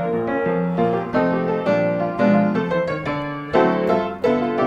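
Background piano music: a light melody of struck notes over chords.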